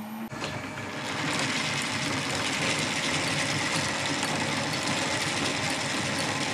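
Lorch plain turning lathe starting up and running, its belt-driven spindle turning the spur gears of a thread-cutting attachment. The whirr of the meshing gears builds over the first second or so, then runs steadily. It is running pretty nicely in this direction.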